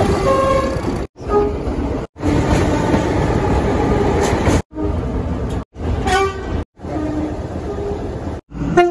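A rapid run of short clips of diesel locomotive horns sounding brief high and low notes, each clip cut off abruptly. In the middle there is a longer stretch of diesel engine and rail rumble, heard from aboard the moving train.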